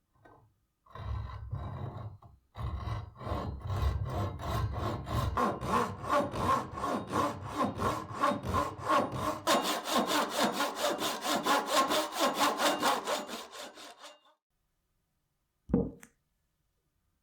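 Hand saw cutting through wood in steady back-and-forth strokes, about three a second, after a brief first start. It stops about three seconds before the end, and there is one short knock afterwards.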